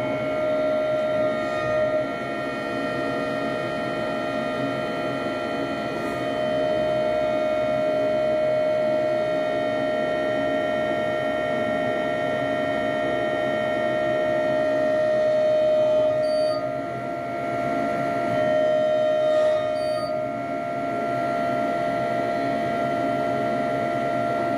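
Ship's deck crane machinery running with a steady, high whine heard inside the operator's cab. Its main tone briefly dips and swells a few times as the control levers are worked.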